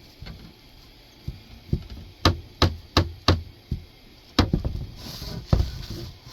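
A run of sharp hard knocks and taps: about five evenly spaced about two seconds in, then a quick cluster and a last knock near the end. They come from hard objects being knocked together as something is handled.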